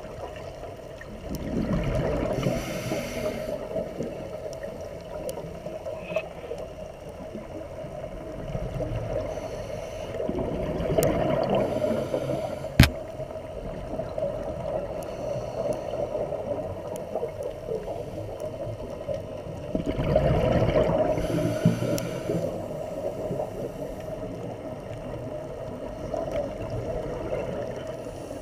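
Underwater ambience heard through a diving camera's housing: scuba exhaust bubbles gurgle up in three swells about ten seconds apart over a steady hum, and there is one sharp click about halfway through.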